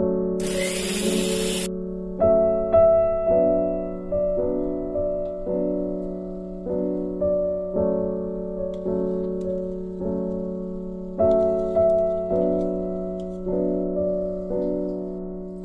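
Background piano music: a slow run of single notes, each struck and fading. In the first second or so, a kitchen mixer grinder runs briefly under the music.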